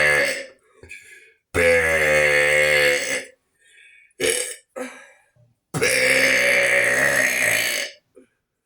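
A person burping loudly on purpose: the tail of one burp at the start, then two long, drawn-out burps of about two seconds each, with a brief short sound between them.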